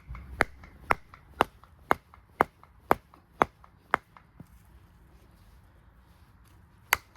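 Batoning a handmade 1095 high-carbon steel bushcraft knife into a log: nine sharp wooden knocks about two a second, then a pause and one last knock near the end. This is a hard-use test of the blade.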